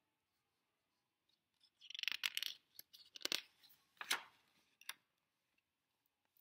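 Picture book handled and a page turned: a papery rustle about two seconds in, then a few short crisp crackles and taps of paper.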